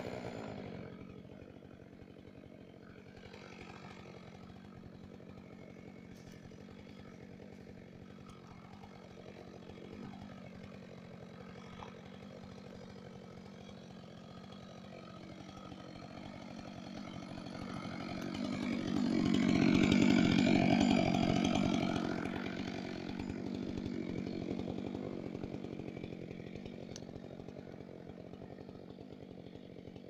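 Stihl chainsaw engine idling steadily, swelling for a few seconds about two-thirds of the way through before settling back.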